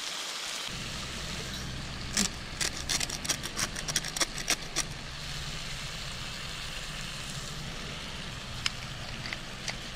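Curry sizzling in a frying pan as a steady hiss, with a coarse sea salt grinder twisted over it about two seconds in: a quick run of sharp clicks lasting nearly three seconds. A few scattered clicks near the end.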